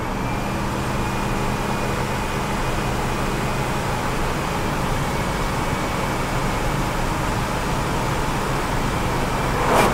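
Cab interior of a 2006 Ford Super Duty pickup with its 6.0 L Power Stroke turbo-diesel pulling hard under full throttle while towing a trailer, accelerating from 60 toward 70 mph, mixed with steady tyre and road noise. A faint steady high whine runs over the engine note.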